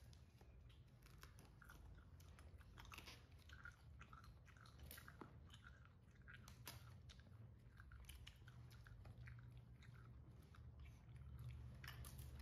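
Faint, irregular crunching and clicking as a baby macaque chews fresh lotus seeds and fingers pick apart the green lotus seed pod.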